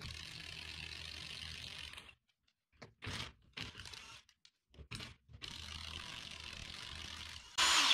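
Cordless impact wrench running on a car's wheel lug nuts, backing them off in two runs of about two seconds each, with short clicks and knocks between as the tool is moved from nut to nut. A brief louder noise comes near the end.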